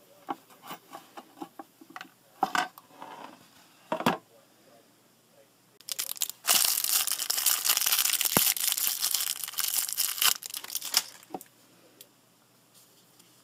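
A few small clicks and knocks as small electronic parts are handled, then a clear plastic parts bag crinkling and tearing open for about five seconds, much louder than the clicks.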